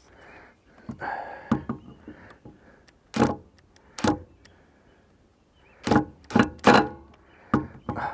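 A series of sharp metal clanks and knocks, some ringing briefly. One comes about three seconds in, another a second later, and a quick cluster of three near the end.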